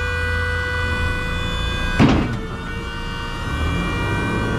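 Steady high-pitched whine of a battery-powered electric-hydraulic pump working the truck's loading ramps, over a low diesel idle. There is a loud metal clank about two seconds in.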